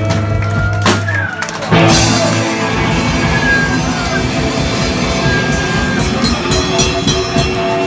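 A live rock band jamming loud, with drums and electric guitar and a sudden loud hit about two seconds in.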